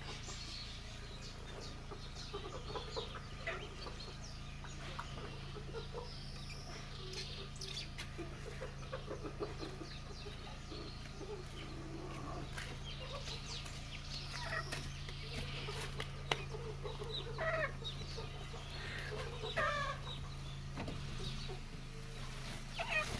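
Chickens clucking, with scattered short calls throughout, over a steady low hum.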